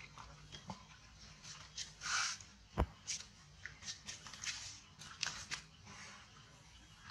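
Scattered soft rustles and clicks of a baby macaque picking at dry leaves on stone, with one sharp click a little before three seconds in.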